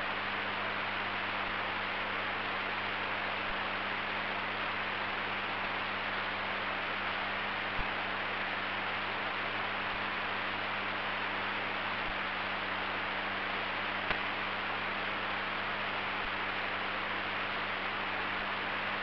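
Dead air on a recorded broadcast: a steady hiss with a low mains hum underneath, and two faint clicks about eight and fourteen seconds in.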